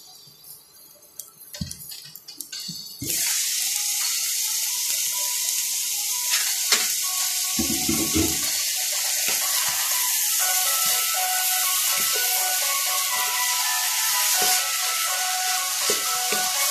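Bitter melon, tuna and egg frying in a wok: a loud, steady sizzle that starts suddenly about three seconds in as the glass lid comes off. A wooden spatula clicks and scrapes in the pan near the end.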